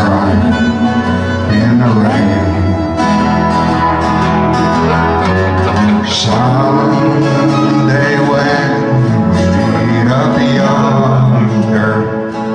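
Live country music: two harmonicas playing a slow melody together over acoustic guitar.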